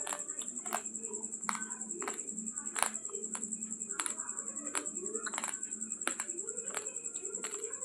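Raw long-grain basmati rice crunched between the teeth: sharp, even crunches about two to three a second, over a steady high-pitched whine.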